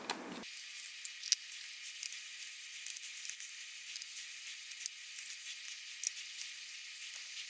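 Small scattered clicks and scratches of a T5 Torx screwdriver turning out the tiny bottom-case screws of a laptop, over a steady faint hiss. From about half a second in, the sound is thin, with no low end.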